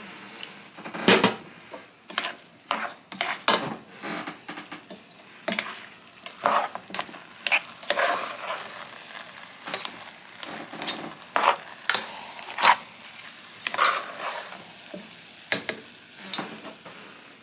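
Fried rice being stirred and scraped with a plastic spoon in a metal pot on the stove: irregular scrapes and knocks against the pot over a light sizzle as the rice fries with its soy sauce.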